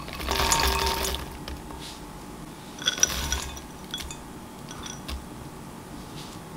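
Chopped walnuts sliding out of a small glass bowl into a glass mixing bowl of soft dough, then chopped chocolate tipped in, with glass clinking and ringing about three seconds in and a few lighter ticks after.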